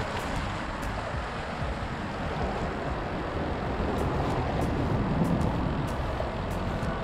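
Steady outdoor background noise: a low rumble under an even hiss, with no distinct event.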